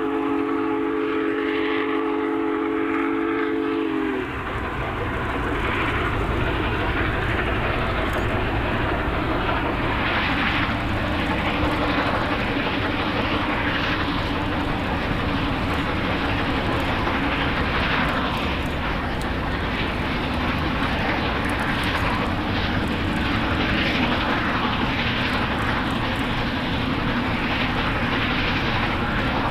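A steam locomotive's chime whistle holds a chord of several notes, then cuts off about four seconds in. After that comes the loud, steady rumble of the Big Boy steam train working past, exhaust and running gear together.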